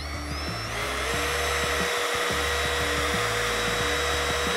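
Cordless trim router running with a motor transplanted from the other brand's router: it winds up in pitch over the first second, then holds a steady high-speed whine. Background music underneath.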